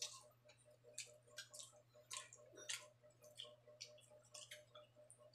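Faint, wet chewing and lip-smacking of a person eating cooked pork innards: irregular soft clicks, several a second.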